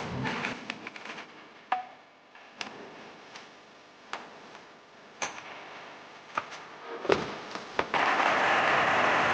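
Scattered clicks and light knocks of metal parts being handled. Near the end, the repaired variable-speed motor starts and runs steadily with a steady hum.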